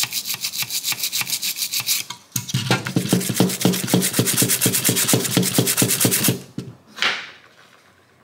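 Toothbrush bristles scrubbing a printed circuit board wetted with rubbing alcohol to clean off flux residue, in quick, even back-and-forth strokes. The scrubbing breaks off briefly about two seconds in, resumes, and stops a little past six seconds in, followed by one last short swish.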